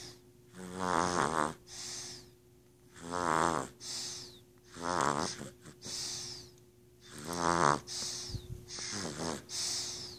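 Snoring: five buzzing, rattling snores about every two seconds, each followed by a hissing breath with a faint falling whistle.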